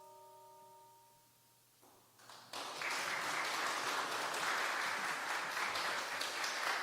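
A sustained bell chord fades out, then audience applause starts about two seconds in and keeps going steadily.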